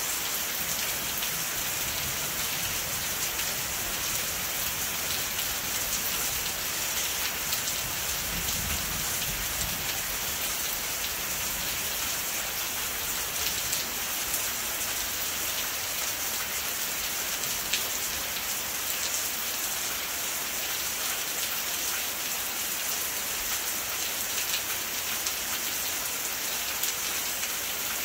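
Steady rain falling, an even hiss that never lets up, with a few louder drops ticking now and then.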